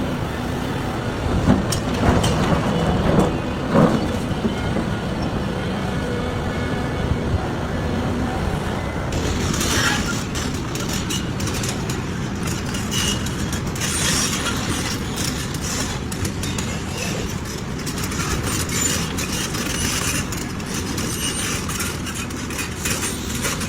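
Large excavator running steadily, with a few loud knocks about two to four seconds in and a lot of metallic clicking and clatter from about a third of the way through.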